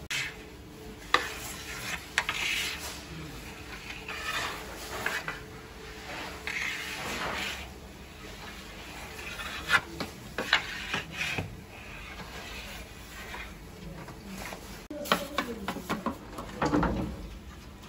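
A metal utensil scraping and stirring on a cooking surface in repeated strokes, with sharp metal clinks, the loudest cluster coming in the last few seconds.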